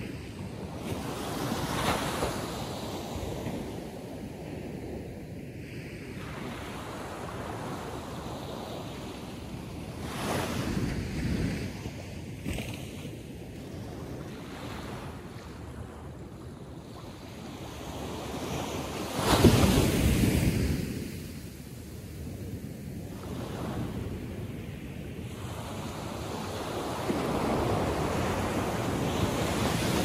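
Atlantic Ocean surf breaking on a beach, waves surging in one after another about every eight or nine seconds, with the loudest crash about two-thirds of the way through.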